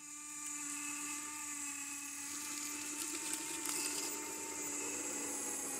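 Radio-controlled scale truck's small electric motor and gears whining at a steady, unchanging pitch, starting abruptly, as the truck works against a steep pine-needle slope and makes little headway.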